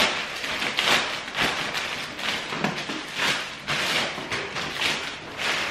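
Plastic mailing bag rustling and crinkling in repeated bursts as a parcel is opened and a box is pulled out of it.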